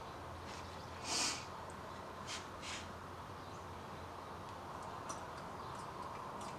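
A short, loud hiss or snort-like rush of air about a second in, followed by two fainter short hisses, over a steady low hum with faint outdoor bird and insect sounds.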